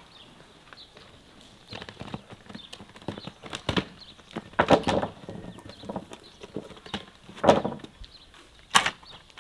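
Irregular knocks and clatters from a wheelbarrow being wheeled over rough ground, with footsteps in rubber boots. The clattering starts about a second and a half in, and the loudest knocks come about four and a half, seven and a half and nearly nine seconds in.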